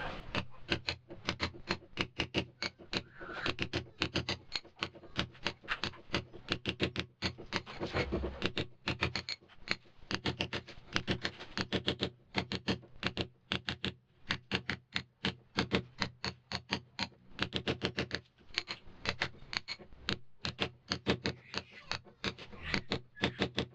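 Mallet striking a chisel into a masonry wall in a steady run of blows, about three to four a second, with a few short pauses: chiselling out a groove in the wall.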